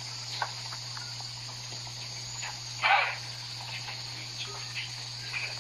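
Insects chirring steadily in the background over a low steady hum, with a few faint knocks and one short rushing huff about three seconds in.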